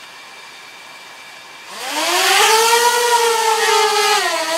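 Camera drone taking off: its motors spin up nearly two seconds in, a rising multi-tone whine over a rush of propeller air that levels off and dips briefly in pitch near the end as the throttle changes.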